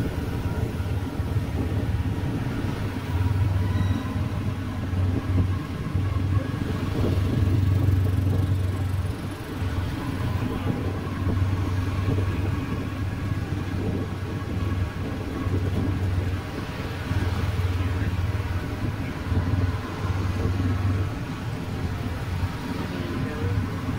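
Motorbike traffic heard from a moving motorbike: a steady low engine and road rumble, uneven in strength, with the hum of other scooters passing.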